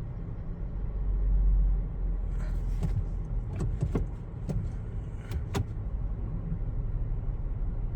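2017 Toyota Sienna's 3.5-litre V6 idling as a steady low rumble while it misfires intermittently, on cylinder 3 and then cylinder 6. The mechanic blames the misfires on dirty fuel injectors. Several sharp clicks come through the middle.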